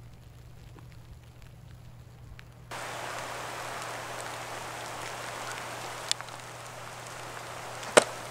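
Steady rain pattering, an even hiss that gets louder a little under three seconds in, with a faint click about six seconds in and a sharp knock near the end.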